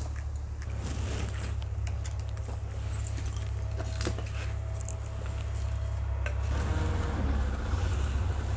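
Wood fire burning in a clay chulha while sticks of firewood are handled and pushed in: scattered clicks, knocks and crackles over a steady low rumble. Near the end a clay pot is handled and set on the stove, and the sound grows a little louder and busier.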